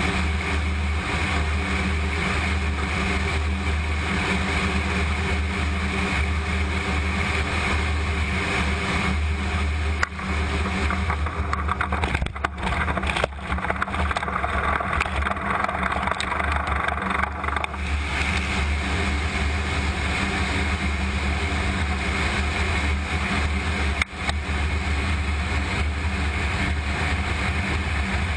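Steady, loud drone of a C-17 Globemaster III's four turbofan engines. About eleven seconds in, the sound turns hissier for roughly six seconds, then settles back.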